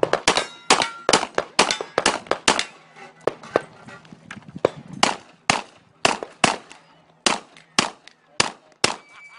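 STI 2011 pistol fired rapidly, about two dozen shots in quick runs of roughly four shots a second, broken by short pauses between target groups.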